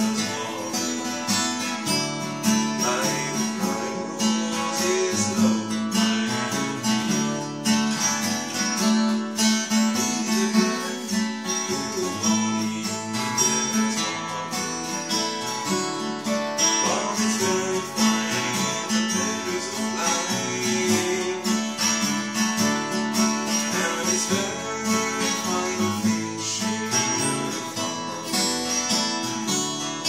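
Acoustic guitar playing an arrangement of an old Irish song, with a low note held steadily underneath the tune.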